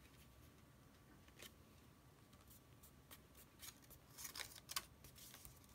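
Faint rustling and light taps of paper card being handled and pressed into place with the fingers, in a few short bursts that gather about four to five seconds in.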